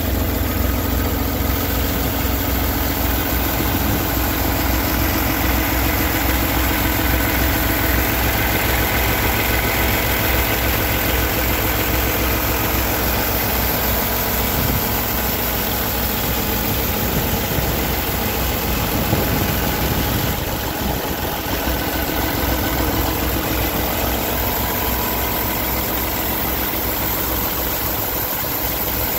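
Paccar MX13 inline-six diesel engine of a Peterbilt 389 idling steadily, heard close up in the open engine bay.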